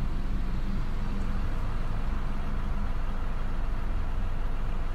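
Steady engine and road noise of a car in motion, heard from inside the cabin.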